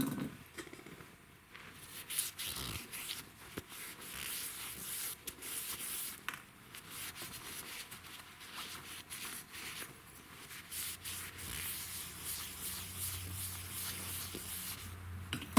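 Rubbing and scrubbing as a chainsaw clutch drum is cleaned out with brake cleaner, with many small irregular clicks and patches of hiss.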